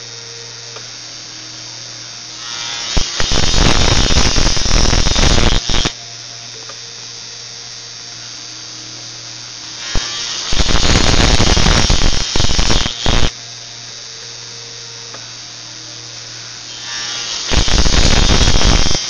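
A drilling machine boring into paper three times, each spell loud and lasting about three seconds, with a short build-up before it. A steady low hum runs between the spells.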